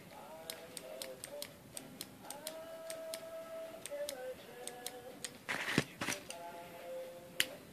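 Soft music with held tones that shift pitch every second or so. Scattered sharp clicks sound over it, with a brief louder rush of noise just before the sixth second.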